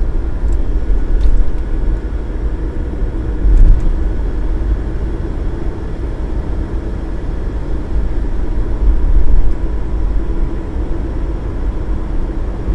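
Toyota HiAce camper van on the move: a steady, loud rumble of engine and road noise.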